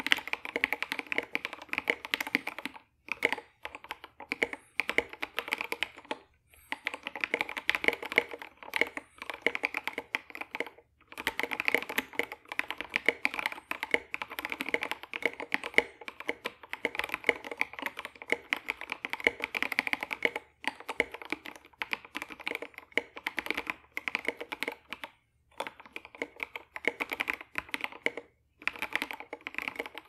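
Typing on a KBD67 Lite R2 mechanical keyboard with stock TKC Banana Split linear switches, a polycarbonate plate, case and plate foam, and SA-profile keycaps. Fast runs of deep, thoccy keystrokes come in bursts, with brief pauses between them.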